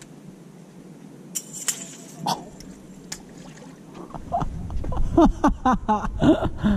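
A few sharp clicks over a quiet background, then, about four seconds in, strong wind buffeting the microphone with a low rumble, broken by several short voice-like sounds.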